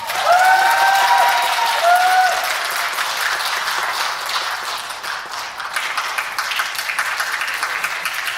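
Audience applauding steadily at the end of a song, with a few high cheering voices in the first two seconds.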